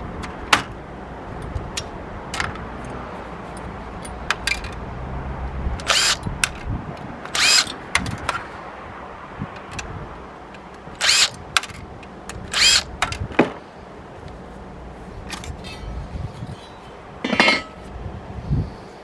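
A Panasonic DMR-XP11 DVD recorder being taken apart: scattered clicks and clinks of its metal and plastic parts, with about five short loud rasps, each about half a second long.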